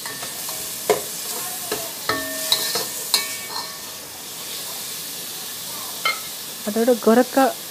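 Chopped tomatoes and onions sizzling in hot oil in a rice cooker's metal inner pot, with a spatula stirring and knocking against the pot. There are several clicks and short clinks in the first three seconds.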